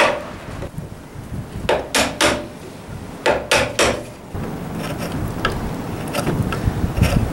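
Chisel being struck while paring a sliding dovetail a tiny chip at a time: one strike, then two runs of three quick strikes about a third of a second apart. From about halfway the strikes stop, leaving quieter hand paring with faint small ticks.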